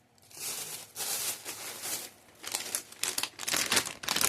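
Plastic snack wrappers being handled and crinkled, a dense run of crackles and rustles that grows louder in the second half.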